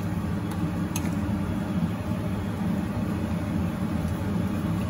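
A steady low mechanical hum with no change in pitch or level, with two faint light clicks in the first second.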